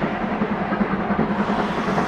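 A train running along the track: a steady rolling noise with rapid, irregular wheel clatter.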